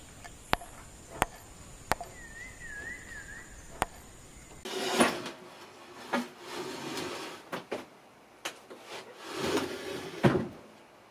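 A hammer striking a nail into wooden boards, four sharp knocks spaced unevenly, with a warbling whistle between them. Then heavy knocks and scraping as an Atlas 10F metal lathe is shoved and slid along a plywood bench top, loudest near the end.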